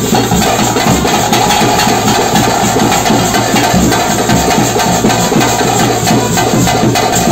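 Dense, loud drumming with a steady held tone above it: the live percussion music that accompanies a Tulu daiva nema (bhuta kola) ritual dance.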